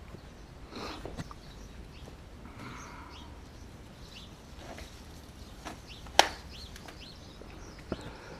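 Scattered light knocks and scuffs of yard work around freshly planted bushes, with one sharp knock about six seconds in and a smaller one near the end; birds chirp faintly.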